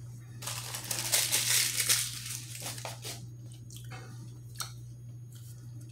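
Close-up chewing of a french fry: a dense crackly burst of mouth noise for the first couple of seconds, then softer wet smacks and a sharp click, over a steady low electrical hum.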